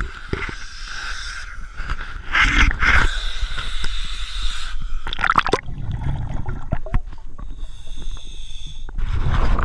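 Water lapping and splashing against a camera held at the surface, then muffled underwater gurgling and bubbling once the camera goes under, about halfway through.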